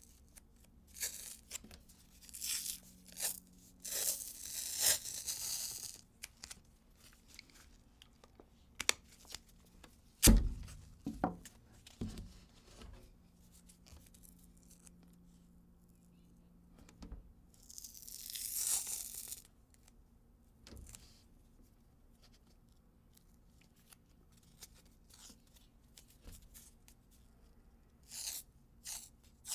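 Medical tape being pulled off the roll and torn in a series of short rips, some long and some quick, with a single sharp knock about ten seconds in.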